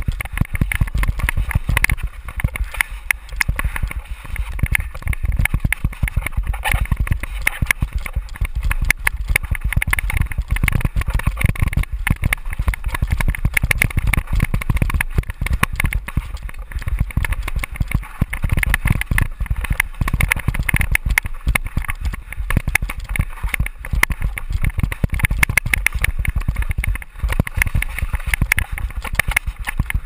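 Downhill mountain bike ridden fast down a rough dirt trail, heard from a helmet-mounted camera: heavy wind rumble on the microphone with a constant rapid clatter and knocking of the bike over bumps and rocks.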